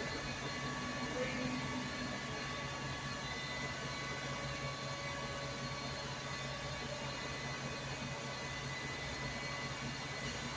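Double-decker bus idling, a steady low engine hum with a faint even whine above it.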